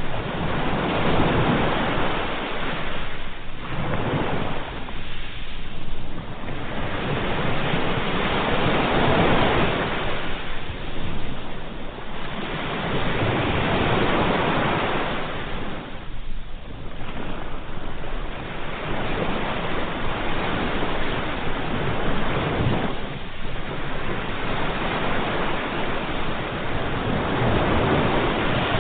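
Ocean waves breaking in a continuous wash of surf, swelling and easing every four to five seconds.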